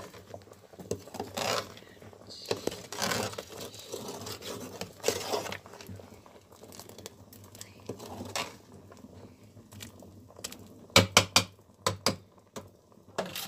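Metal spoon stirring thick ogbono soup in a metal pot, giving irregular scraping strokes every second or two. Near the end comes a quick run of sharp taps, then one more.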